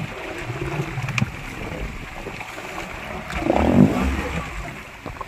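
Water splashing against a boat's hull as a hooked eel thrashes at the surface, loudest about three and a half seconds in, over a steady background hiss.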